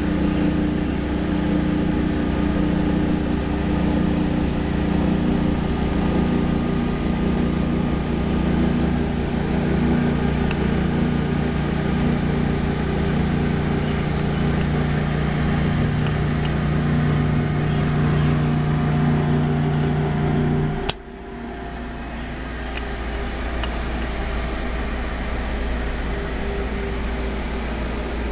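Van Norman #555 grinder running with a steady, even hum. About two-thirds of the way through, a sharp click cuts the humming tones off, leaving a quieter, lower hum.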